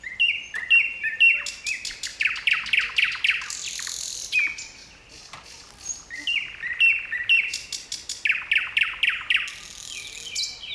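A songbird singing: two long phrases of quick repeated notes, the second beginning about six seconds in.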